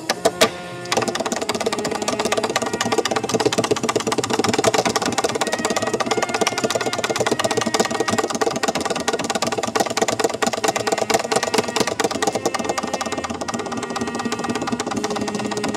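Tap dancing: taps on a stage floor, a few separate taps in the first second, then a fast, unbroken stream of rapid taps.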